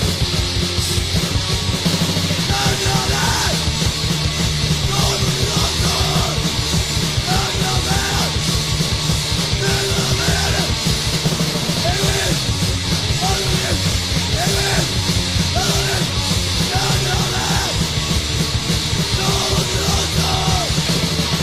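Mid-1980s Swedish hardcore punk recording: a band playing fast and loud, with shouted vocals coming in a couple of seconds in.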